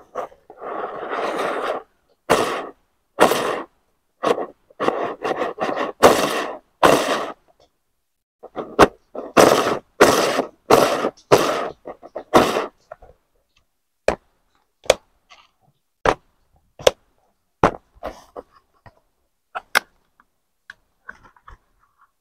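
Plastic gear spinners on a pencil-box lid being flicked round again and again, each spin a short rasping plastic whirr. Then a string of sharp plastic clicks as the box's snap catches and lid are worked open.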